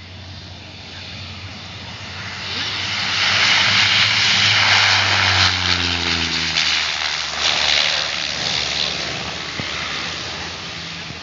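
Small single-engine propeller airplane landing and rolling past on the runway. Its engine and propeller noise swells over the first few seconds and is loudest as it passes, with the engine pitch dropping around the middle, then slowly fades.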